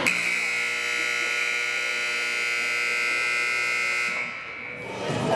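Hockey arena scoreboard buzzer sounding one loud, steady buzz for about four seconds, then cutting off.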